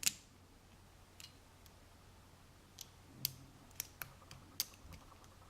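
Faint, irregular clicks and taps of lock picks working in the keyway of a cheap dimple-lock cylinder, with one sharper click at the start.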